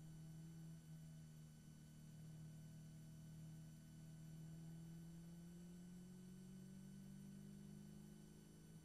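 Faint, steady note of a Caterham Seven race car's four-cylinder engine pulling hard in gear, its pitch rising slowly as the car speeds up, then dropping at an upshift at the very end.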